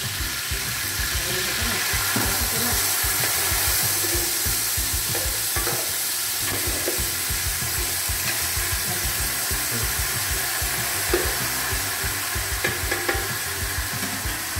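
Browned meat, tomato and peppers sizzling steadily in a large aluminium stew pot as a glass of wine is poured in and stirred with a spoon, the hot liquid hissing into steam.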